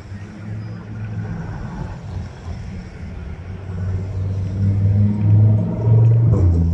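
A Lamborghini supercar's engine running with a deep, loud note as the car turns through the junction and passes by. The note grows louder from about four seconds in, over lighter street traffic noise.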